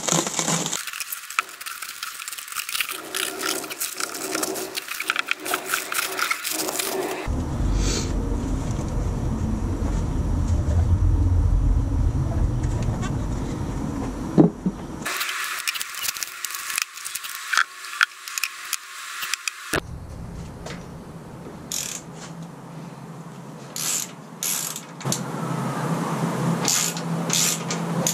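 Plastic wrap crinkling and tearing as it is pulled off a motorcycle mini fairing, with many small clicks and knocks as the fairing is handled. The sound changes abruptly several times where the video is cut.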